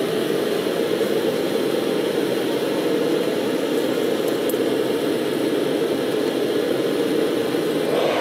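Small propane furnace's burner running, a steady rushing noise that grows a little brighter near the end.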